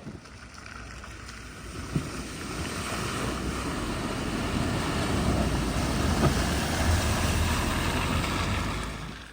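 A car driving through deep floodwater at a ford, its engine rumbling under the rush and splash of water. It grows louder over several seconds, then drops away sharply near the end.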